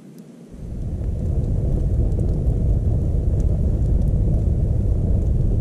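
Wood fire burning hard up a standing log: a loud, steady low rumble of flames with faint crackling. It starts about half a second in and swells over the next second.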